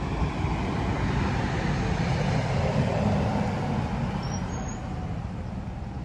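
Bus driving past: engine and tyre rumble that builds to a peak about halfway through and then fades away.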